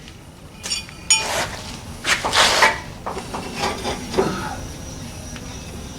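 Steel U-bolts and their hardware being handled: two short metallic clinks that ring briefly, then rustling and scraping as the parts are moved about.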